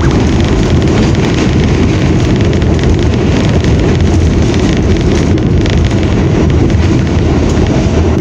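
New York City subway train running at speed through a tunnel: a loud, steady rumble and rattle of wheels on rails, heard from inside the car.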